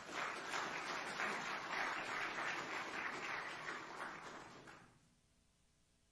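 Congregation applauding, the clapping tapering off and stopping about five seconds in.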